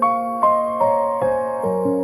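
Slow, gentle instrumental background music, with soft notes struck about every half second and left to ring.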